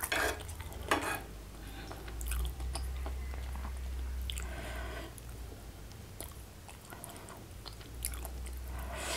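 Close-miked chewing, with scattered soft clicks and scrapes of a fork and spoon in a bowl of coconut curry.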